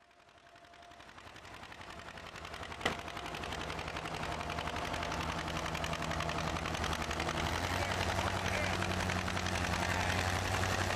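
Antique farm tractor engines running as they pull plows through a field, a rapid, steady firing beat that fades in over the first few seconds. A single sharp click about three seconds in.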